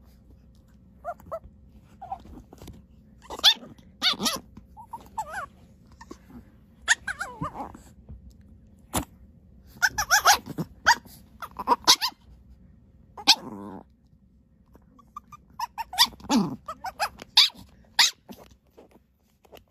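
Dogs barking in short, sharp, irregular yaps, with growling between, and a longer call about thirteen seconds in.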